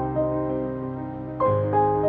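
Soft new-age background music with piano: gentle notes ringing over held chords, with a new chord coming in about a second and a half in.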